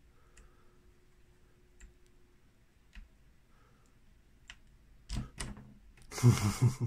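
Dials of a four-digit combination bike lock being turned by hand: a few faint, widely spaced clicks, then louder clicks and rattling about five seconds in as the code lines up and the lock is pulled open, with a loud burst near the end.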